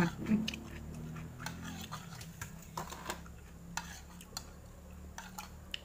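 Scattered light clicks and clinks of plates, bowls and spoons at a dinner table as people eat.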